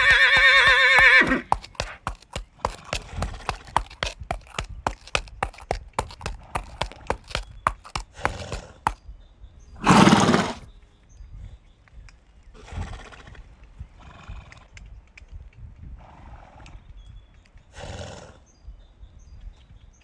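Horses: a quavering whinny trails off in the first second or so, then hooves clop irregularly for several seconds. About ten seconds in there is a loud noisy snort, followed by several softer snorts.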